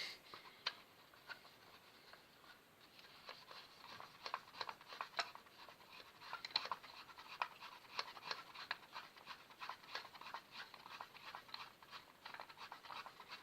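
Faint, irregular clicks and light scrapes of a screwdriver working the screws of a plastic wall socket faceplate, several a second.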